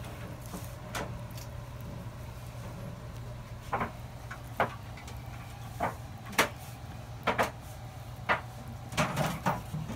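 Scattered short wet clicks and squelches from a hand working inside a plucked chicken's body cavity, pulling the entrails loose. They come more often near the end, over a steady low hum.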